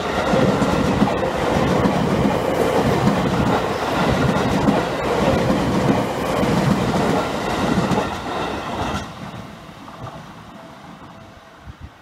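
Seibu 10000 series (New Red Arrow) limited express train passing close by on the rails. The sound stays loud until about nine seconds in, then fades away as the last car goes by.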